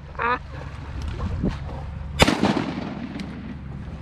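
One shotgun shot about two seconds in, a sharp crack that trails off in an echo. A short duck quack comes just at the start.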